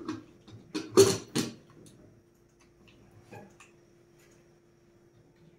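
Aluminium pressure cooker lid clanking and clicking into place as it is twisted shut and locked, a few sharp metallic knocks about a second in. A few faint ticks and a faint steady hum follow.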